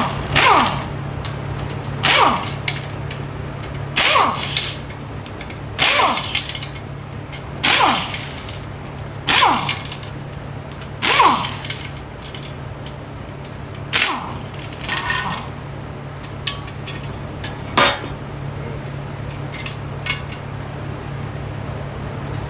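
Air impact wrench (Harbor Freight Earthquake) spinning out already-loosened bell housing bolts on a 4L60E transmission, in about ten short bursts roughly two seconds apart, each ending in a falling whine as it spins down. A steady low hum runs underneath.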